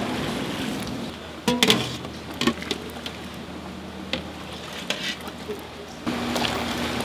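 Broth pouring through a steel mesh strainer into a metal pot, then a few sharp clanks of a utensil against the steel pot.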